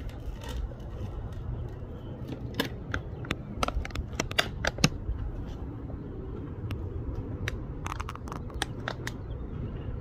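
A crinkly plastic bag handled close to the microphone, giving sharp clicks and crackles in two clusters: from about two and a half to five seconds in, and again around eight to nine seconds in. Under them runs a steady low rumble.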